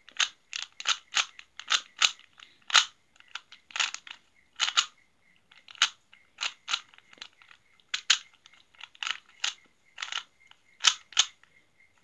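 Plastic 3x3 Rubik's Cube being turned by hand, face after face, each turn a sharp plastic click, irregular at about two to three clicks a second.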